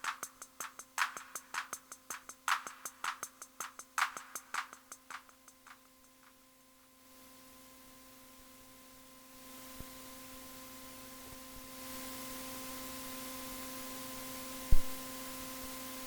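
Roland TR-6S drum machine pattern of sharp clicky hits with echoing repeats, fading out over the first six seconds. Then a steady hiss that grows louder in a few steps over a steady low hum tone, and a single sharp thump near the end.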